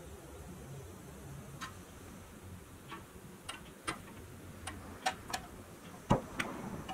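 Light clicks and taps of the painted pressed-steel cab of a Tonka pickup being fitted onto its matching floor piece: about ten irregular clicks starting a second and a half in, the loudest a knock about six seconds in.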